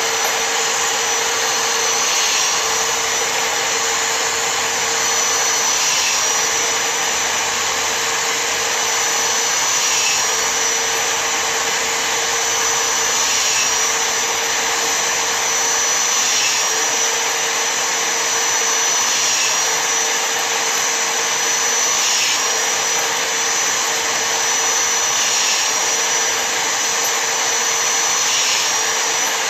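Old electric drill with a reamer chucked in, running steadily. Its pitch dips briefly about every three seconds as a brass cartridge case is pressed onto the reamer, cutting the military crimp from the primer pocket.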